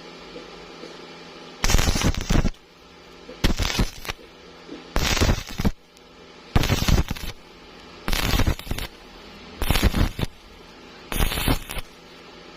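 Welding arc crackling in short, regular bursts: seven strikes, each under a second long, about every one and a half seconds, as in stitch welding. A quiet steady hum fills the gaps between the bursts.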